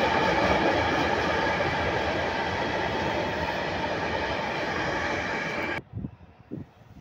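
Freight train of open-top wagons rolling past close by: a steady, loud rumble of wheels on the rails. The sound cuts off suddenly almost six seconds in, leaving only faint low bumps.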